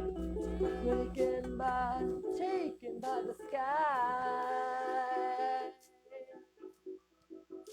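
Strummed chords on an acoustic string instrument with a wordless sung or hummed vocal line, one long wavering note held for about two seconds in the middle. A low hum sits under the first two seconds, and after the held note the playing drops to quieter plucked strings.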